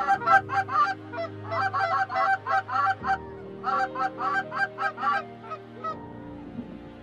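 Goose calls blown in a fast run of clucks and honks, about three or four a second, with short breaks, stopping about five seconds in: hunters calling a small incoming flock of Canada geese toward the decoys.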